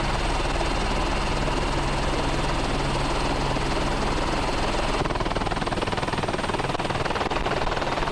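Helicopter running steadily, heard from aboard the filming helicopter: a constant loud drone with a low hum, changing slightly about five seconds in.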